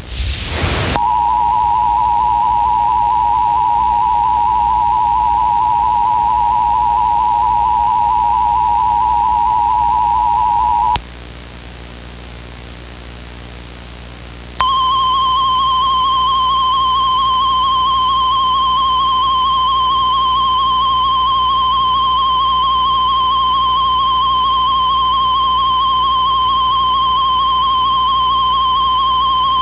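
Mock Emergency Alert System warning tones over VHS tape hiss and hum. About a second in, a steady, slightly wavering alert tone starts and lasts about ten seconds. After a few seconds of hiss, a higher, buzzier steady alert tone takes over.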